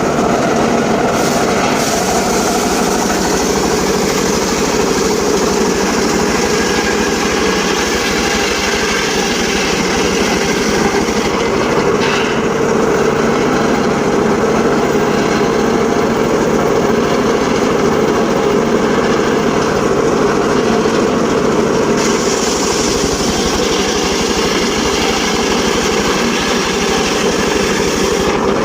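Engine-driven mobile circular saw rig running steadily, with a loud continuous mechanical drone.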